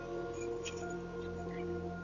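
Background music: a soft ambient bed of sustained, steady tones, with a few faint ticks.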